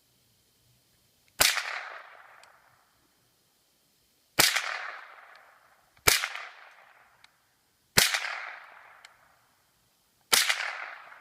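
Savage .22LR semi-automatic rifle firing five shots, unevenly spaced a couple of seconds apart, each sharp crack trailing off over about a second.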